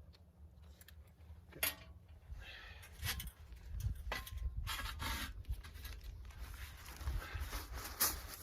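Handling noise of a tent stove and its pipe being worked into place: irregular scraping, rustling and light metallic clicks, with a brief ringing tone about four seconds in, over a steady low rumble.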